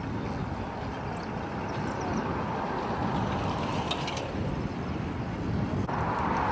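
Steady low rumble of wind buffeting the microphone outdoors. Near the end, after a cut, a brighter rushing hiss comes in.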